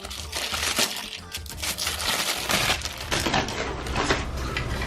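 Crinkling and crackling of plastic packaging being handled and pulled open while unpacking an emergency flashlight, with background music underneath.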